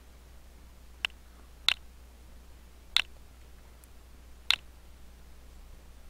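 Four separate computer mouse clicks, unevenly spaced.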